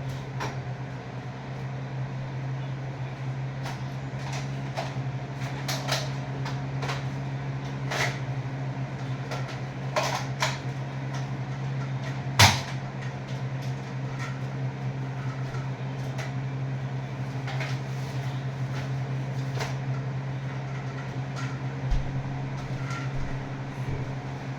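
Scattered plastic clicks and clacks of a Nerf blaster being loaded and handled, over a steady low hum. One much louder sharp snap comes about halfway through.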